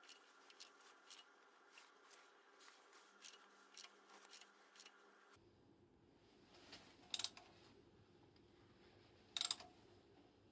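Faint, irregular clicks and light taps of hand tools and parts being handled during engine work, with two louder clicks in the second half.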